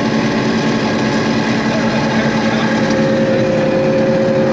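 John Deere 6620 combine's diesel engine running steadily under harvest load. A steady higher whine joins about three seconds in.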